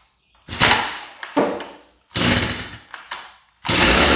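Stihl FS 38 trimmer's small two-stroke engine being pull-started cold with the choke closed: several quick pulls of the recoil starter, then near the end a longer, louder burst as the engine briefly fires, a "burp".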